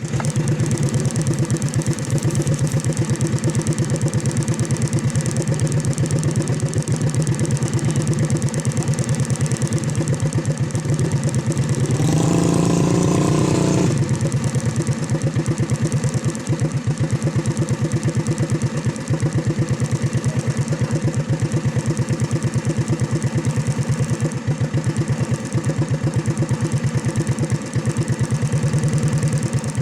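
Motorcycle engine running steadily, with a louder, higher-pitched sound lasting about two seconds roughly twelve seconds in.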